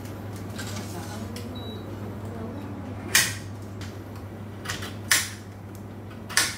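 A large kitchen knife chopping down onto a cutting board: four sharp, unevenly spaced chops in the second half, over a low steady hum.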